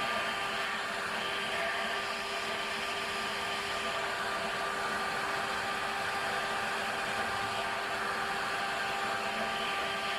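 Shop vacuum motor running steadily with an even whine, blowing air.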